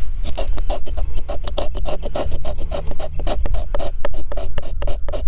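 A knife scraping a Waxwood Stick, a wooden tinder stick with a waxy outer surface, to raise fine tinder shavings. The scraping strokes come quickly and evenly, about five a second.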